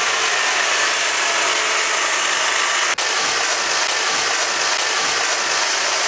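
Corded electric hedge trimmer running steadily, its blades cutting through an evergreen hedge, with a momentary break about three seconds in.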